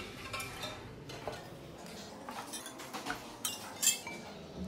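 A few scattered light clinks and taps of kitchenware as tomato slices are laid over marinated meat in a baking dish, the clearest clinks near the end.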